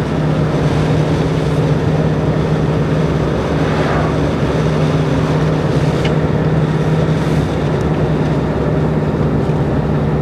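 Motorhome driving at a steady cruising speed, heard inside the cab: a steady engine drone over an even rush of tyre and wind noise.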